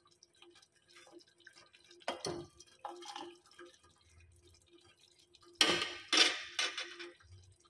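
Sugar syrup simmering in a stainless steel pot, bubbles popping and syrup dripping from a ladle held over it. A few louder, sharp splashy sounds come about six seconds in.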